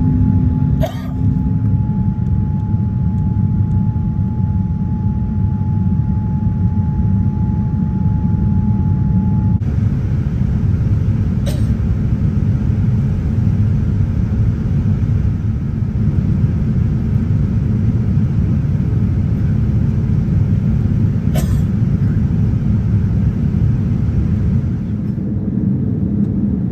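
Steady low rumble of a Boeing 787 Dreamliner in flight or on the move, heard from inside the cabin. A faint steady whine stops about ten seconds in, and a few brief clicks come through.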